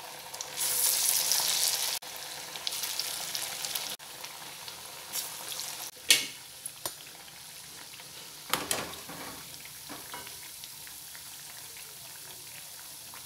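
Masala vadas deep-frying in hot oil in a kadai: a loud sizzle as a fresh patty of bean batter goes into the oil, settling into a steady bubbling hiss. Twice a metal slotted spoon knocks sharply against the pan.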